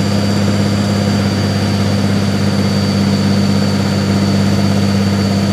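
Diesel pulling tractor's engine idling steadily, with a thin steady high whine over its low note.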